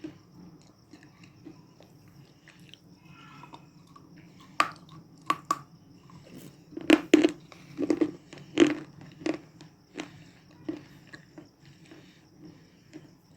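A person biting and chewing baked clay (mitti) chips close to the microphone. Sharp, brittle crunches begin about four seconds in and are loudest in the middle, then fade to softer chewing.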